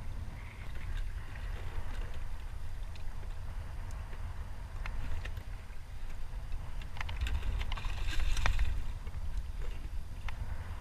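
Wind rumbling on the microphone and water sloshing at a kayak's side, with scattered knocks of gear against the hull. Near the end comes a louder splash as a fish thrashes in a landing net.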